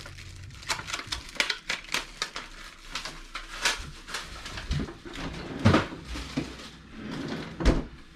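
Irregular clicks and taps of hands picking through a frozen pack of hornet larvae and its packaging, with a louder knock near the middle and another near the end.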